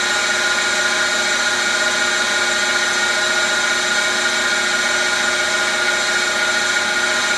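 Cylindrical grinder running steadily with its wheel grinding a lathe shaft: a constant machine whine with several steady tones over an even hiss.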